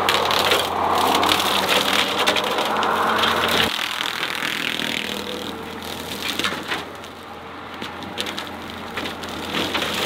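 Skid steer brush cutter chewing through brush, with dense cracking and splintering of wood over the machine's engine. The low engine hum drops away suddenly about four seconds in while the crackling goes on.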